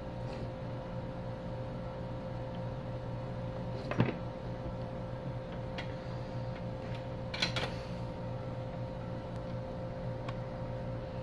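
Steady electrical hum from running workbench equipment, with one sharp tap about four seconds in and a short rustle about two-thirds of the way through.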